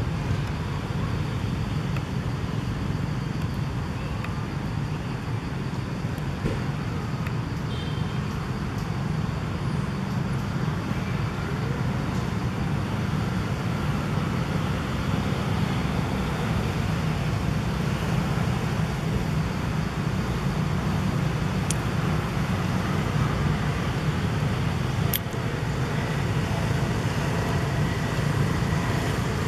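Steady low rumble of background road-traffic noise, even throughout, with a couple of faint sharp ticks late on.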